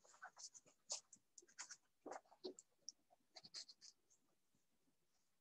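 Faint, irregular scratching of a pen on paper, in short uneven strokes.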